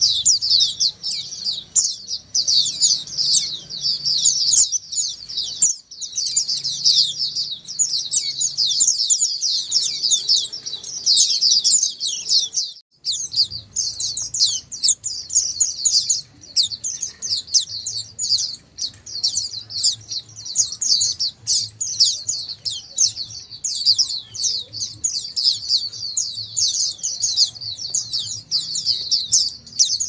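A flock of white-eyes (pleci) chirping together in a dense, continuous chatter of high, quick notes, with a momentary break near the middle.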